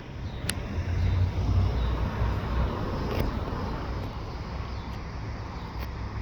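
A road vehicle passing: a low rumble with tyre noise that swells about a second in and slowly fades, with a brief click early on.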